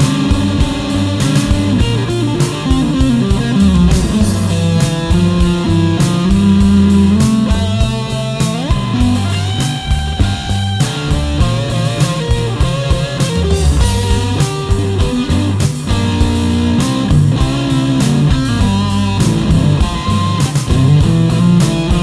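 Electric guitar played through a G.P. Electronics IC130 MK2 solid-state amplifier, with delay and reverb added, over a rock backing track with drums and bass. The guitar plays melodic lines with notes that bend and slide in pitch.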